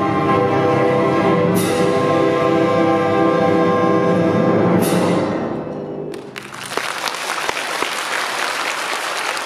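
Full orchestra of strings, winds and brass holding the final chords of the piece, marked by two bright crashes, then dying away about halfway through. About a second later the audience bursts into steady applause.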